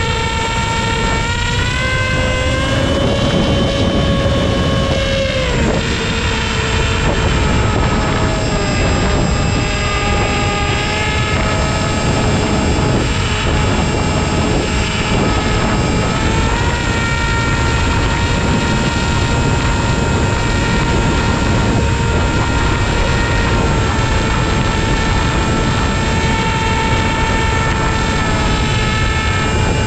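HobbyZone AeroScout RC plane's electric motor and propeller whining in flight, the pitch climbing with throttle about two seconds in, dropping back about five seconds in and climbing again near the middle. Wind rushes and buffets steadily over the onboard camera's microphone.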